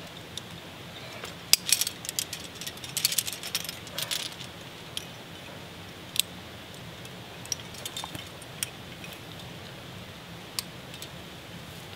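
Metal climbing gear clinking: carabiners and protection pieces knocking together as they are handled. There are bunches of quick clinks about a second and a half in and again around three to four seconds, then scattered single clicks.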